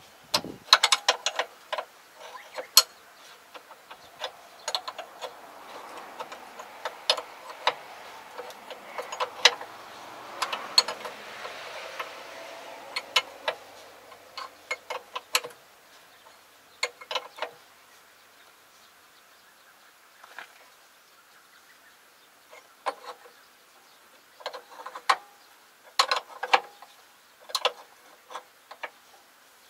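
Metal hand tools clinking against each other and the toolbox as they are picked through, in irregular clusters of sharp clinks.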